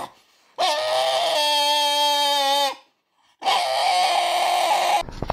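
French bulldog crying in two long, whining howls: the first held on a steady pitch for about two seconds, the second shorter after a brief pause.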